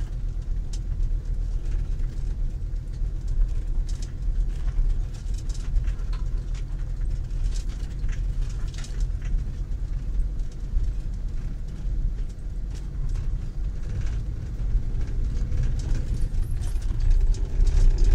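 Motorhome driving slowly over a rough gravel track, heard from inside the cab: a steady low rumble from the engine and tyres, with loose fittings rattling and clicking. The rattling and vibration come from the uneven road surface and grow louder near the end.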